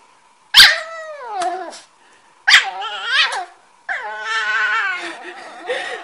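Small shaggy dog giving protesting yowls while being kissed: three cries, each starting sharply and falling in pitch, the third longer and wavering.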